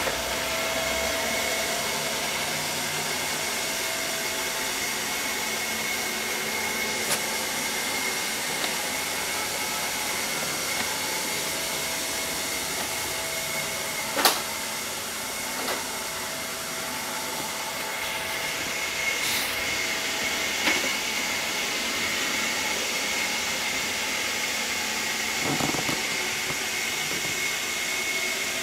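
ILIFE V5S robot vacuum running steadily: an even hiss with a faint high whine, broken by a few sharp clicks and knocks, the loudest about halfway through.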